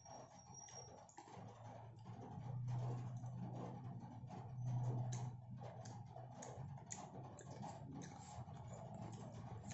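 Eating sounds: crispy Jollibee fried chicken being pulled apart by hand and plastic utensils clicking and scraping in a paperboard food box, a string of small crisp clicks. A low hum swells and fades a few times underneath.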